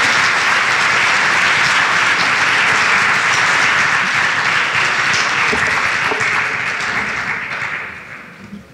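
Large audience applauding, steady for several seconds and then dying away near the end.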